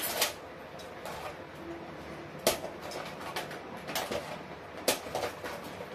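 Small plastic items knocking and clicking against each other in a plastic tub as a hand rummages through it: several sharp taps, the loudest about two and a half and five seconds in.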